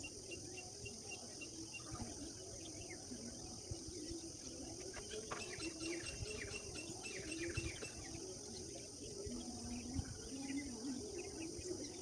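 Birds chirping and twittering, with a quick run of high descending chirps in the middle, over a steady high-pitched insect drone.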